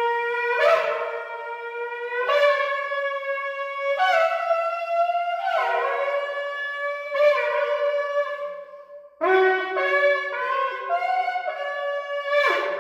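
A 36-inch shofar blown in long sustained blasts, the pitch jumping between notes every second or two. The tone breaks off briefly about nine seconds in before the blowing resumes.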